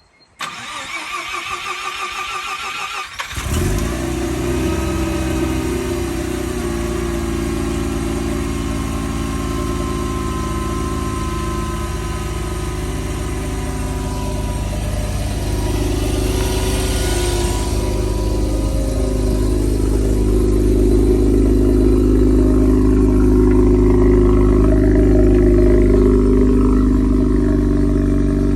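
Mazda rotary engine on a cold start: the starter cranks for about three seconds, the engine catches and settles into a steady fast idle, which grows a little louder in the second half.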